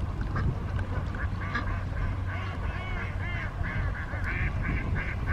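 A flock of ducks quacking, many short calls overlapping and coming thick from about a second in, over a steady low hum.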